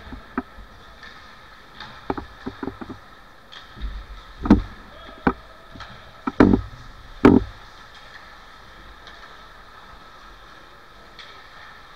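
Ice hockey play in a rink: a string of sharp knocks and thuds from puck and sticks hitting the boards and ice, the loudest about four and a half, six and a half and seven seconds in, over the steady hum of the arena.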